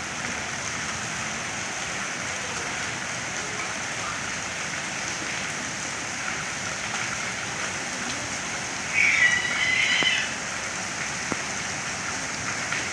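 Light rain falling steadily, an even hiss of drops. About nine seconds in, a louder high-pitched sound lasting about a second stands out over the rain.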